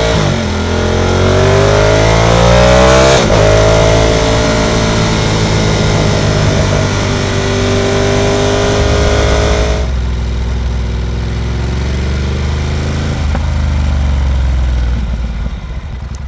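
Ducati Monster 1200 S's L-twin engine pulling under acceleration, its pitch rising, with a quick gear change about three seconds in. About ten seconds in the throttle closes and the engine falls to a lower, steadier note, over a hiss of wind and road noise.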